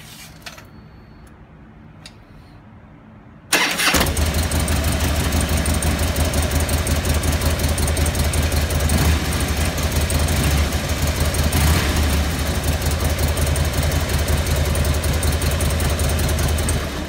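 Harley-Davidson Road King CVO's V-twin engine started on the electric starter about three and a half seconds in, catching almost at once and then running steadily with a deep, even rumble until it cuts off near the end.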